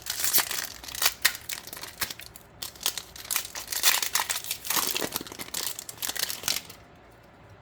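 Foil wrapper of a Magic: The Gathering collector booster pack crinkling as it is handled and torn open, in irregular crackles that stop abruptly about seven seconds in.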